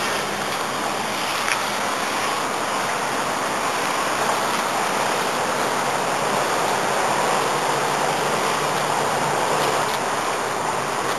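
Steady rushing noise of wind on the microphone, with a faint low steady hum underneath.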